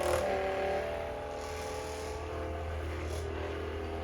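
Handheld percussion massage gun running against the muscles, a steady motor hum.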